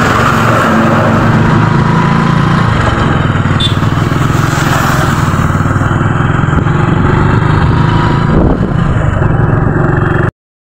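Motorcycle engine running steadily while riding on the open road, with a rushing hiss over the engine hum; the sound cuts off abruptly near the end.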